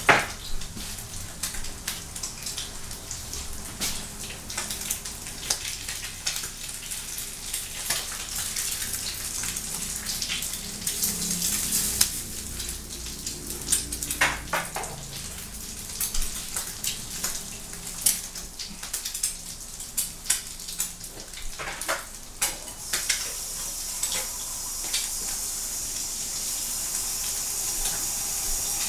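Eggs frying in a skillet on a gas burner, with a steady sizzle that grows stronger near the end. Scattered clicks and clatter of dishes and utensils run through it.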